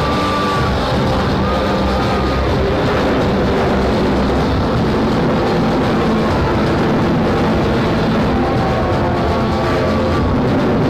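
Loud, steady rumble of aircraft engines mixed with music.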